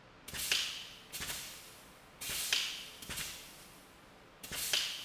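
Hydraulic pump being worked in strokes, about six short rushing strokes in pairs, loading a bolt in a thread insert as the pressure climbs past 8,000 psi.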